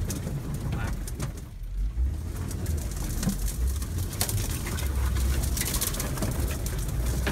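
Car pushing off-road through brush, heard from inside the cabin: a low engine and road rumble, with many short scrapes and ticks of branches and twigs against the body and windshield, busiest in the second half.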